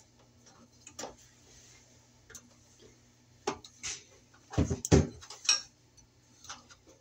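Irregular light clicks and taps of needle-nose pliers and wires against the sheet-metal housing of an electric baseboard heater, with two louder knocks close together about four and a half seconds in.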